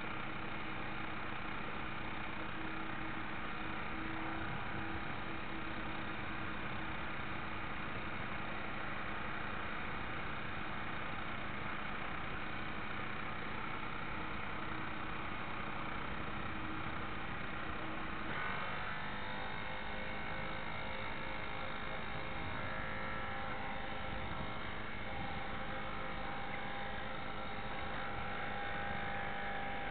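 Onboard drive motor of a radio-controlled model destroyer running steadily under way, heard from a camera on its aft deck, with a steady whine over water noise. Past the middle the pitch of the whine shifts to a new, higher set of tones.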